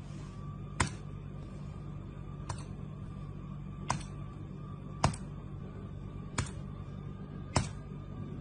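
Six sharp clicks of a computer mouse button, about one every second or so, over a steady low hum.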